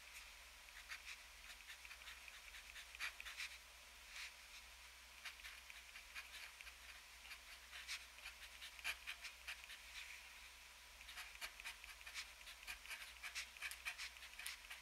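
Extra-fine steel nib of a TWSBI Eco fountain pen scratching across paper while writing. It is faint, made of many short, irregular strokes and ticks as the nib touches down and lifts between characters.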